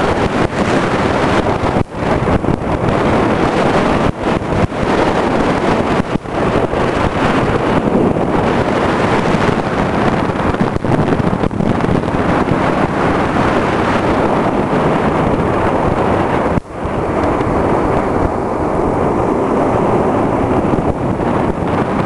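Heavy wind rushing over the microphone of a camera mounted on a Suzuki Skywave 250 Type M scooter while riding, mixed with the scooter running along the road. The rush cuts out for an instant a few times.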